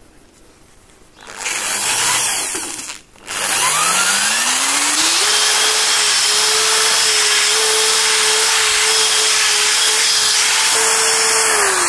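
Cordless drill with a spot-weld drill bit drilling out a spot weld in sheet steel. After a short noisy burst, the motor spins up, rising in pitch, and runs steady under load for about six seconds, then winds down near the end.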